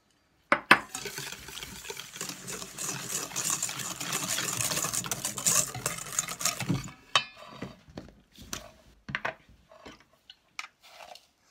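Wire whisk beating sugar into eggs in a stainless steel bowl: a fast, steady scraping and clinking of the wires against the metal for about six seconds, which stops suddenly. A few light knocks and clicks follow.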